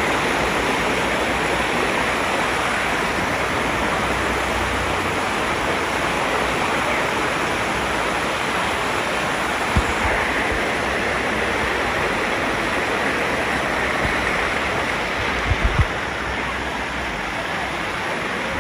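Shallow water rushing and splashing steadily down the stepped rock terraces of a waterfall. A few dull thumps sound about halfway through and near the end.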